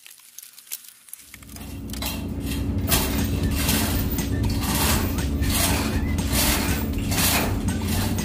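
Engine-room machinery running with a steady low hum, fading in about a second in, while metal tools and parts clank and clink as the crew work on an engine bed.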